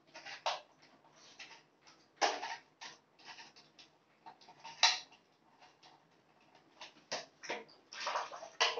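Small plastic water toys being handled and wound in a plastic basin of water: scattered clicks and small splashes, with a few louder ones standing out.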